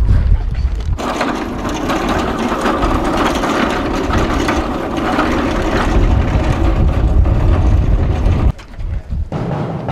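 Wheeled metal cart rolling on its casters over asphalt, a steady rattling rumble that stops suddenly about eight and a half seconds in.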